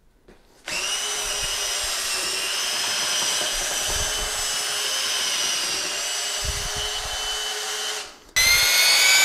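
Half-inch cordless drill turning a full-size mixing paddle through thick drywall mud on low speed, the motor whining steadily under heavy load and struggling. Near the end it cuts out briefly and a louder drill motor with a slowly rising whine takes over.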